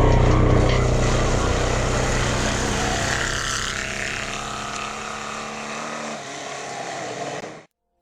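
Air-cooled Volkswagen flat-four engine of a Class 11 off-road race car running at a steady speed. It fades gradually and cuts off abruptly near the end.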